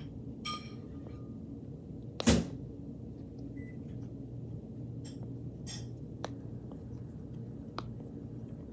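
A large silicone pop-it fidget toy being pressed: a few scattered pops and clicks from its bubbles, with one much louder pop a little over two seconds in.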